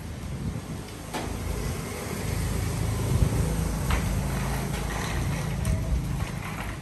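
A motor vehicle's engine running, a low steady rumble that gets louder about a second in and holds, with a couple of light clicks over it.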